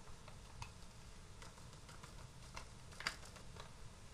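Faint, scattered light taps and clicks of small paper spice sachets being handled over a steel bowl, the loudest about three seconds in.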